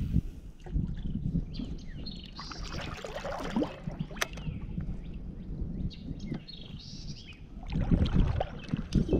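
Water lapping and splashing around a fishing kayak, louder about three seconds in and again near the end, with small birds chirping repeatedly in the background.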